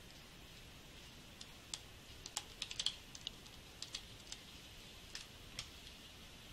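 Faint, irregular clicking of computer keys and mouse controls: a dozen or so light, separate clicks, several bunched together in the middle.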